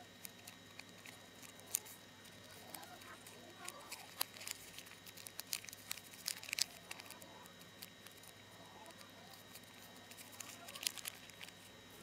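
Origami paper crane being unfolded by hand: faint paper crinkling with scattered sharp crackles as the folds are pulled open.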